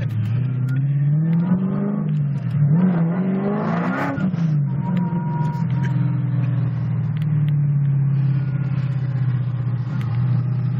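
426 Hemi V8 of a Dodge Challenger heard from inside the cabin, pulling hard as its pitch climbs twice with a dip between, peaking about four seconds in. It then eases off and runs steadily at cruise.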